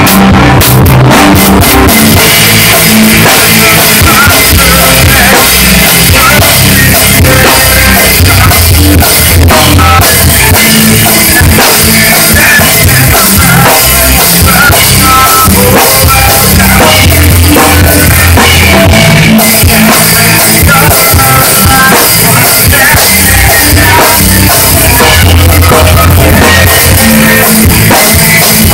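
Rock band playing loud in a small room, with the drum kit heard up close: kick, snare, toms and cymbals pounding under guitar.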